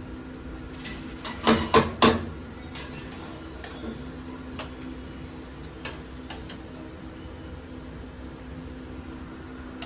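Metal spatula scraping and knocking against a steel kadhai as a pan full of grated carrots is stirred. There are three loud clacks about a second and a half to two seconds in, then lighter, scattered knocks, over a steady low hum.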